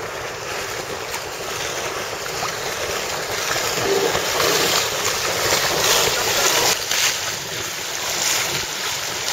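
Waves and water sloshing, with wind on the microphone, while an all-electric runabout passes. Its electric motor is quiet enough that no engine sound is heard, only the waves.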